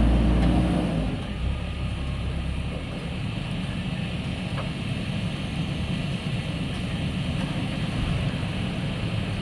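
JCB 3DX backhoe loader's diesel engine running, loud for about the first second, then easing back to a lower, steady running.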